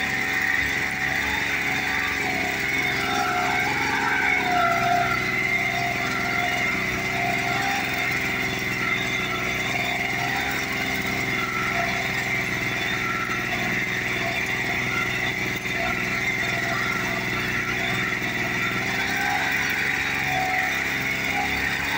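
Single-cylinder Jikov 1453 engine of a VARI walking tractor running steadily under load as it pulls a tine cultivator-and-crumbler combination through tilled soil.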